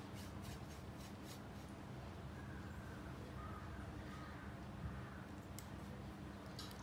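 Faint scratching of a paintbrush working chalk paint over a coaster, with a few soft handling clicks, over a steady low hum.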